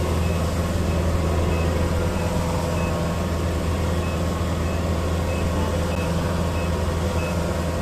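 A farm vehicle's engine running steadily, with a short high beep repeating about every two-thirds of a second.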